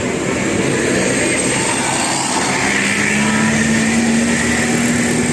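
Bus engine running amid road and traffic noise, with a steady low hum coming in about halfway through.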